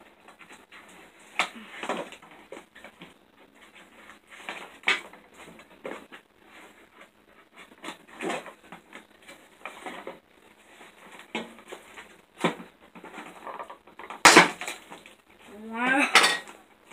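Scissors snipping and the crinkle and rustle of plastic and cardboard toy packaging being cut and pulled apart, in scattered short bursts. A louder sharp snap comes shortly before the end, then a brief rising squeak.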